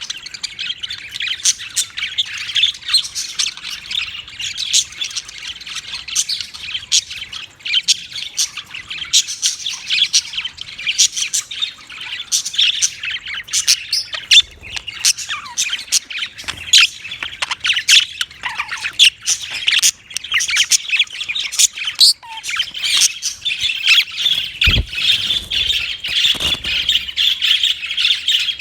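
Budgerigars chattering: a rapid, continuous stream of short chirps and squawks.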